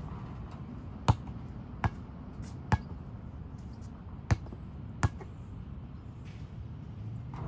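Basketball bouncing on a hard outdoor court: five sharp, separate bounces spread over the first five seconds or so, over a steady low background noise.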